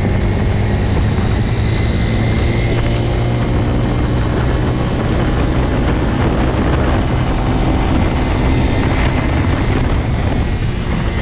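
A loud, steady mechanical drone with a low hum and a faint high whine, unchanging throughout and cut off abruptly at both ends.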